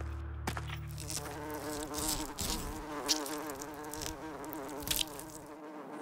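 A fly buzzing close by, its pitch wavering up and down as it circles, with a few sharp clicks.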